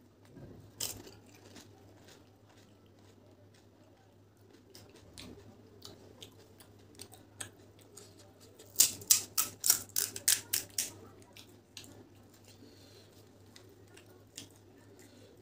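Crisp pani puri shells crunching as they are bitten and chewed close to the microphone: scattered soft crackles and clicks, with a quick run of about a dozen loud, sharp crunches about nine seconds in.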